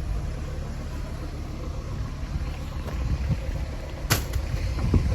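A vehicle engine idling with a steady low hum, and a sharp click about four seconds in.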